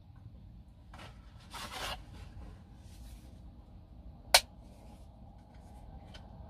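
Dry lasagna sheets being handled and laid into a ceramic baking dish. A rustling scrape comes about a second and a half in, then one sharp click about four seconds in, with a few faint ticks.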